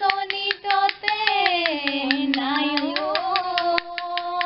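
Women singing a Bihu naam, an Assamese Bihu folk song, in long held lines that slide down in pitch about halfway through, over quick, steady claps from a split-bamboo toka clapper.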